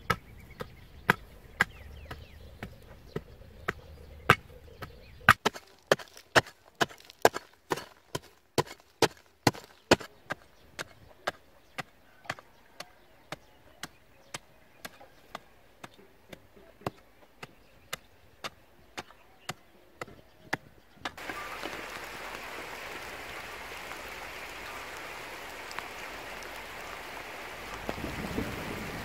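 A hand digging tool striking hard, dry soil over and over, each blow a sharp chop, at about one to two blows a second. The blows stop about two-thirds of the way in and a steady hiss takes over.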